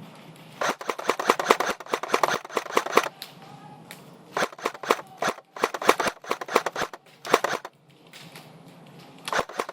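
Electric airsoft rifle firing on full auto in rapid clicking bursts: one long burst of about two and a half seconds, then several short bursts, and another burst starting near the end.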